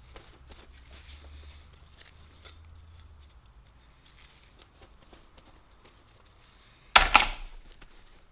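Light handling of steel snap ring pliers, with faint clicks and rubbing. About seven seconds in, two loud sharp clacks in quick succession ring briefly, like the tools being knocked together or set down.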